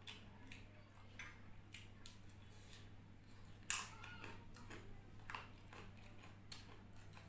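Close-up eating sounds of a person eating instant noodles: scattered small clicks, chewing and mouth noises, with one louder sharp crack or clatter about three and a half seconds in, over a faint steady low hum.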